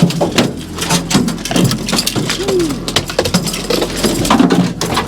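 A freshly landed salmon flopping on a boat deck, giving irregular slaps and knocks, over the steady low hum of the boat's engine.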